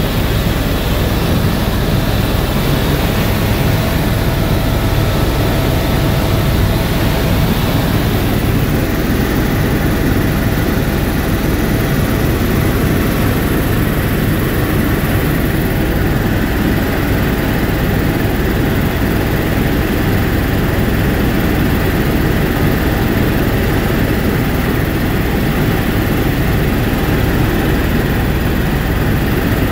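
Helicopter engine and rotor noise heard from inside the cabin in flight: a loud, steady drone.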